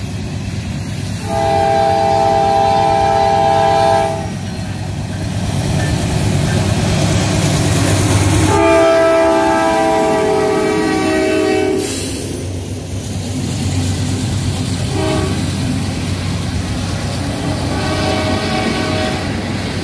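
Diesel freight locomotive's multi-tone air horn blowing two long blasts, a short one and a final long one, the long-long-short-long signal for a grade crossing, over the steady rumble and wheel clatter of freight cars rolling past on the rails.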